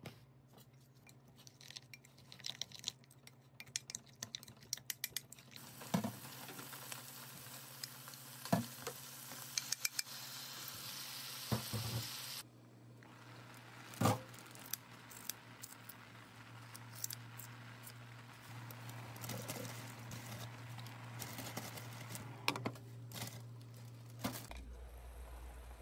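A spoon clicking against a glass bowl as a soy sauce seasoning is stirred. Then tofu slices sizzle with a steady hiss as they braise in that sauce in a frying pan.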